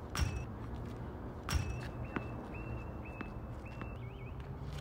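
Two sharp knocks of a tennis ball bouncing on a hard court, about a second and a half apart, followed by a few short high chirps.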